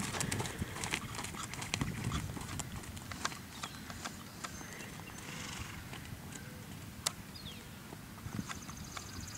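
A horse's hoofbeats on arena sand as it trots away, the soft thuds growing fainter and sparser.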